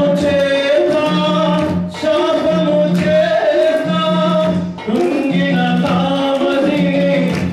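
A worship song sung through a PA, accompanied by an electronic keyboard and an electronic drum pad played with sticks, with a regular repeating bass pattern under the melody.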